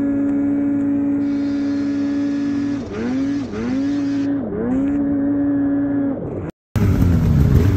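Snowmobile engine running at high revs in a steady tone, then the throttle is eased off and opened again three times about a second apart, the pitch dipping and climbing back each time. Near the end the sound cuts out briefly and gives way to louder revving from several sleds.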